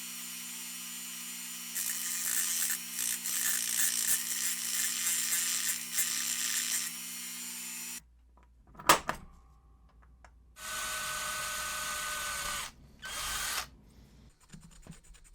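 Small rotary tool with a cutting disc running, grinding down the raised trim on a die-cast metal toy car hood: a steady motor hum with a rougher grinding rasp from about two to seven seconds in, cutting off suddenly at about eight seconds. After a click, a small power tool runs again briefly for about two seconds.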